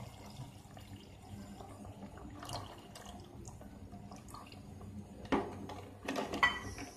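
A thin stream of strained crab-claw extract trickling steadily into a pot of crab curry. Near the end, a few sharp knocks as a ladle hits the pot and starts stirring.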